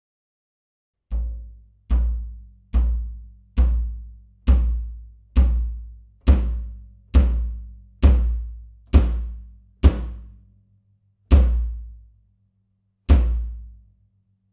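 A Zebra Drums 18x14-inch free-floating walnut bass drum, played with a kick pedal and a Leather Daddy beater: thirteen single strokes. Each stroke is a deep boom with a short ringing tone that dies away within about a second. The strokes come evenly, just under a second apart, and the last two are spaced further apart.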